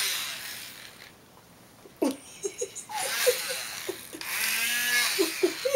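Battery-powered de-matting comb buzzing as its small cutting blades run through a dog's long fur, the pitch bending as it drags. It buzzes at the start, stops about a second in, and runs again for about two seconds from around three seconds in.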